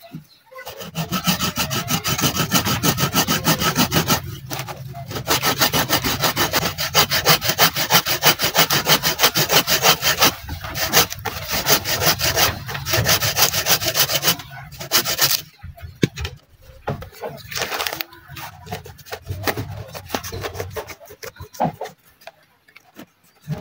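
A small hand saw cuts through the woody trunk of a sancang bonsai stock with quick back-and-forth strokes, pausing briefly a few times. About fifteen seconds in, the sawing stops, and a cutter knife scrapes and pares the fresh cut in short, quieter, irregular strokes.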